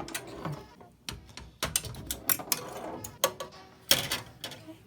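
Clicks and knocks of a 1979 Gorgar pinball machine's playfield being set back down into its cabinet, a scattered run of sharp mechanical taps with the loudest near the end.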